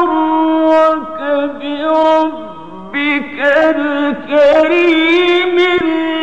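A man's voice in melodic, mujawwad-style Quran recitation: long held notes with wavering ornaments, dipping to a softer, lower stretch a little before the middle.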